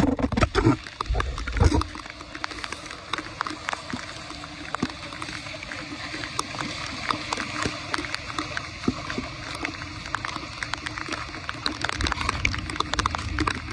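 Floodwater gurgling and splashing as it drains off a road through a cleared blockage, with many small splashes over a steady flow. A few heavy low thumps come in the first two seconds.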